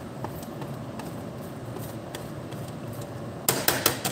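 Cheddar cheese being grated on a stainless steel box grater: a quick run of short scraping strokes about three and a half seconds in, over a low steady background hum.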